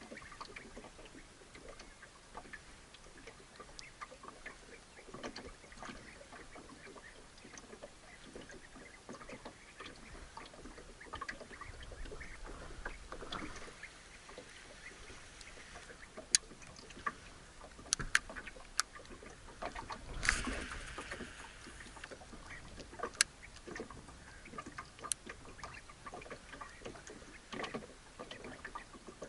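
Small waves lapping against a small fishing boat, with scattered light clicks and knocks. A few sharp clicks come a little past halfway, and a brief louder rush of noise about twenty seconds in.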